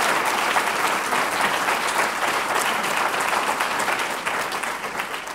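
An audience applauding, many hands clapping at once, tapering off near the end.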